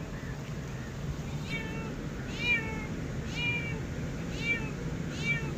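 An animal calling five times, about a second apart: short, high, meow-like calls that fall in pitch, over a low steady background hum.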